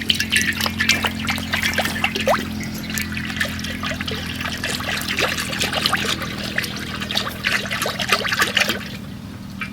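Cooking oil being poured into a hot kadhai, trickling with dense crackling that stops near the end, over a steady low hum.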